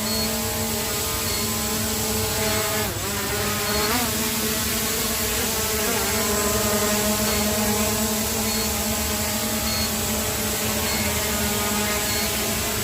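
Quadcopter drone's electric motors and propellers whirring steadily, the pitch dipping and rising briefly about three and four seconds in as the motor speed adjusts.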